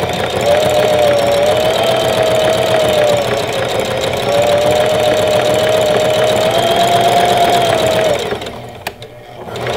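Singer Heavy Duty sewing machine running at speed, sewing a stretch stitch after its hook and needle timing were reset; the motor's whine wavers slightly in pitch. It stops about eight seconds in and starts again briefly just before the end.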